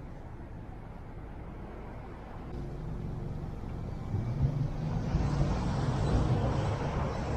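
Car engine and tyre noise from traffic pulling away from a light, with a low rumble that rises a couple of seconds in and grows louder from about four seconds in.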